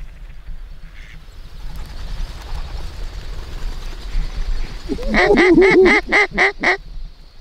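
A quick series of about seven loud duck quacks, starting about five seconds in, over a steady low rush of wind.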